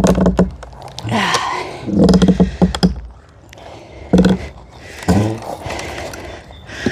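Deck boards being pried up: repeated short creaks and groans of wood and nails giving way, mixed with sharp knocks.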